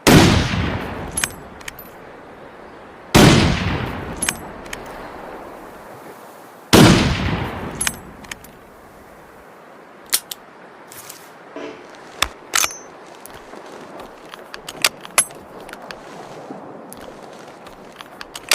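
Three hunting rifle shots about three and a half seconds apart, each with a long echoing tail, followed by a scattered string of light metallic clicks and clinks.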